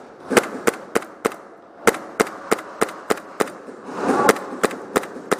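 Airsoft guns firing semi-automatic, about fourteen sharp pops at roughly three a second in three short strings, with brief pauses between them.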